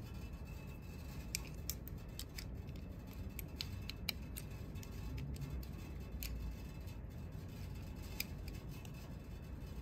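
Small, irregular metallic clicks and ticks of a hand tool and steel linkage parts being handled while the thread-trimmer plate of an industrial sewing machine is lined up and its screws tightened. The sharpest clicks come about four seconds in and again near the end, over a low steady hum.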